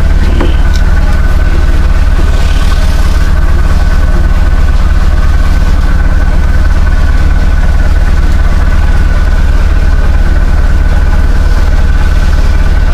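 Large marine diesel engine idling steadily and loudly, with a steady deep rumble and a faint high whine over it.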